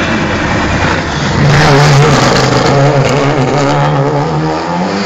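Rally car engine running hard as the car passes close, loudest about a second and a half in, its note held steady and then rising near the end as it accelerates away.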